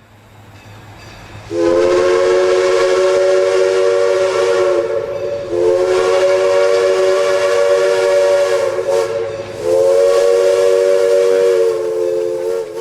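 A train's chime whistle sounds a chord in three long blasts about four seconds apart, after a hiss builds up. The pitch sags slightly as the first two blasts end.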